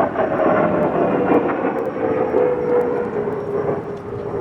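A steady motor drone whose tone falls slowly in pitch, fading near the end, with a few faint ticks over it.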